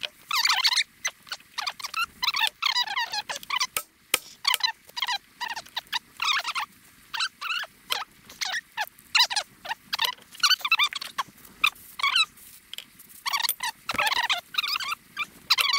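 Irregular high-pitched squeaky calls from a small animal, several a second, each bending in pitch.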